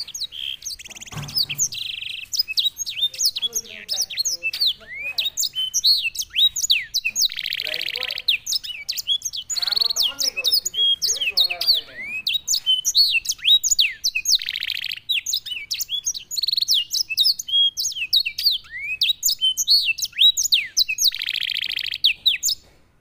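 Canary singing a long, varied song packed with imitated notes of other birds: quick falling whistles and chirps, broken every few seconds by a fast buzzy roll. The song stops abruptly near the end.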